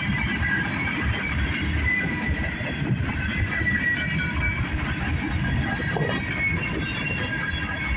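Loaded covered hopper cars of a freight train rolling past: a steady rumble of steel wheels on the rails, with thin high squealing tones coming and going over it.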